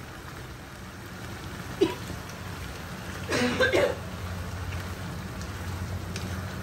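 Mutton kheema with potatoes and peas sizzling gently in a frying pan as it is stirred with a wooden spatula, with a short knock about two seconds in. A brief vocal sound, like a cough or a murmured word, comes about three and a half seconds in.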